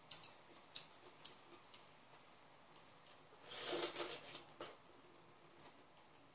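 Close mouth sounds of eating fresh pineapple straight off the fruit: a few sharp wet smacks and clicks, then a longer juicy bite and suck at the flesh about three and a half seconds in.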